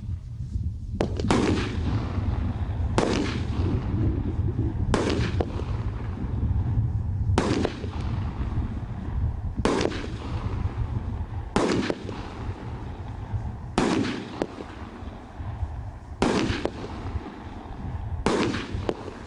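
A 19-shot consumer fireworks cake firing its shots one by one, about one every two seconds, each a sharp bang with a short trailing tail. A steady low rumble runs underneath.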